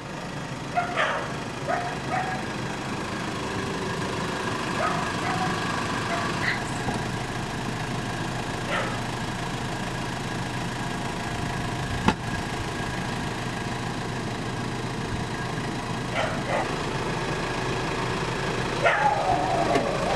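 A dog barking in short, scattered bursts, in clusters near the start, in the middle and near the end, over the steady low hum of an idling car engine. A single sharp click comes about twelve seconds in.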